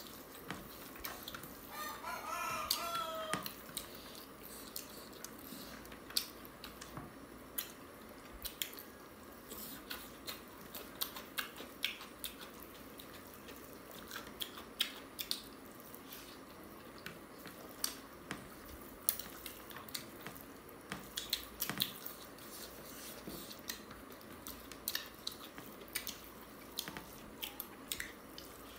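Close-up eating sounds of a mukbang: chewing, lip smacks and fingers working rice on a plate, heard as many short, sharp clicks throughout. About two seconds in, a brief pitched call sounds over them.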